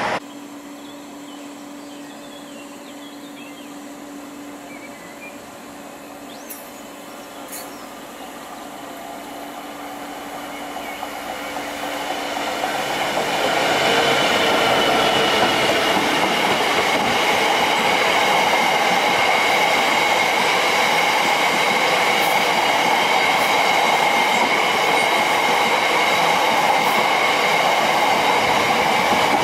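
A Freightliner Class 66 diesel locomotive approaches and passes at speed, growing steadily louder over the first dozen or so seconds. It is followed by the loud, steady rush of its hopper wagons rolling by, with a high-pitched ringing tone over the wheel noise.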